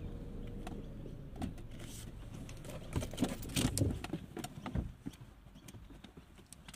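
Low rumble of a car engine idling, fading after the first second, with a scatter of short clicks and light knocks about three to five seconds in.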